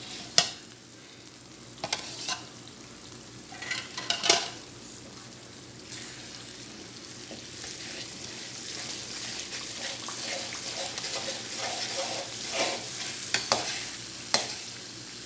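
Slotted metal spoon stirring a tomato-and-yogurt gravy in a metal pan, scraping and knocking sharply against the pan several times, while the gravy sizzles steadily on a high gas flame. The sizzling grows louder in the second half.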